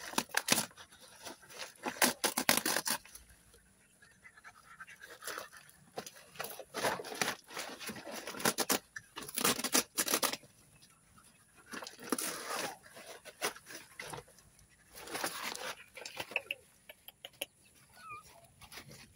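A mother dog and her newborn puppies stirring: irregular rustling, scraping and wet clicking sounds come in clusters, with a couple of faint high squeaks near the end.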